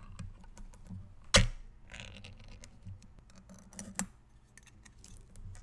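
Small objects being handled close to an ASMR microphone: scattered clicks and taps, with one sharper click about a second and a half in, a short rustle around two seconds, and another click near four seconds.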